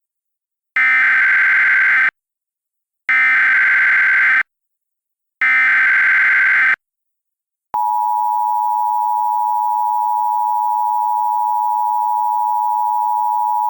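Emergency Alert System tones: three short bursts of the digital SAME header, each about a second long, with a harsh, buzzy warble. About eight seconds in, the steady EAS attention tone begins and holds.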